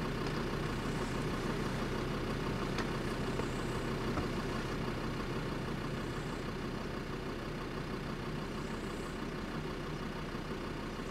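A vehicle engine idling steadily, with a faint high-pitched chirp recurring every second or two.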